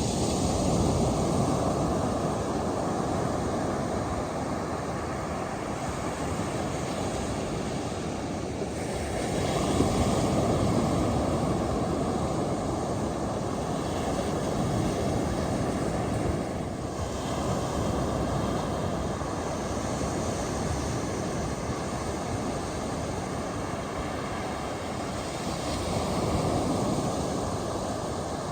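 Ocean surf breaking on a beach: a steady rush of waves that swells louder with a break about a second in, again around ten seconds, and once more near the end.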